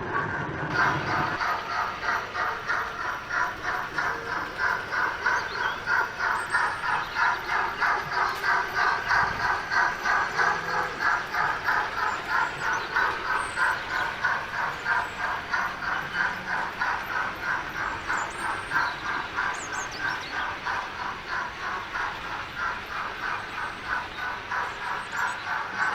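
Steam-locomotive exhaust chuffs from a DCC sound decoder in a Hornby Britannia 4-6-2 model, played through its small on-board speaker. The chuffs come in a steady, even rhythm as the model runs along.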